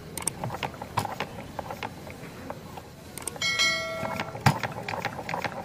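Homemade single-cylinder petrol engine being spun over by hand, with scattered clicks and knocks. About three and a half seconds in there is a short metallic ring, then a sharp knock as the engine catches. It then runs with a rapid ticking.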